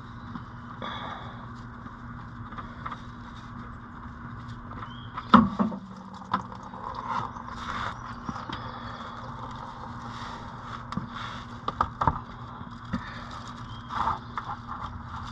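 Scattered clicks, knocks and scrapes of an oil filter being unscrewed by hand and pulled from under a car, over a steady low hum, with one sharper knock about five seconds in.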